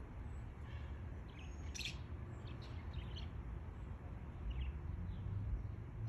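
Budgerigars chirping in short, scattered high chirps, the clearest about two seconds in, over a low steady rumble.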